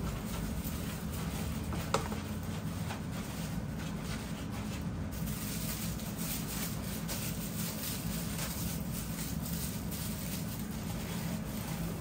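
Honeycomb kraft paper wrap rustling and crinkling as it is handled and tucked around tin cans in a cardboard box, with one sharp tick about two seconds in, over a steady low hum.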